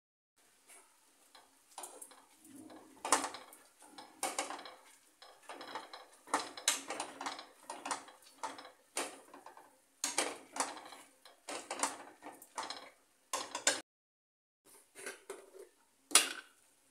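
A bean masher mashing cooked lentils in a stainless steel frying pan: irregular strokes with knocks and clinks against the pan, one or two a second, with a short pause near the end.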